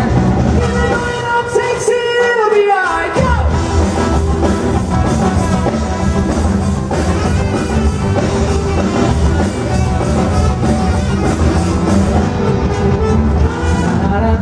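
Live rock band playing loudly, with drums, bass, guitar and singing. About two seconds in, the bass and drums drop out briefly under a falling glide in pitch, then the full band crashes back in.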